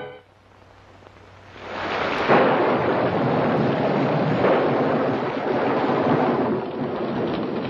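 Storm sound effect of heavy rain with thunder, swelling in about two seconds in and then running steadily.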